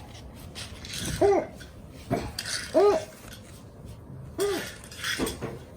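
A toddler's short vocal sounds: three brief rising-then-falling calls about a second and a half apart, with a couple of light knocks between them.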